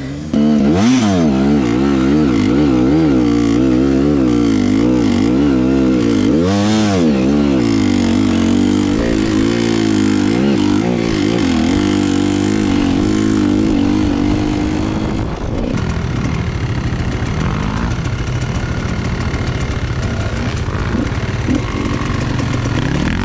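Enduro dirt bike engine running under the rider, the throttle rolled on and off so the revs rise and fall, with one sharp rev about seven seconds in, then held steady. After about fifteen seconds the note turns rougher and less even, with rattling over it.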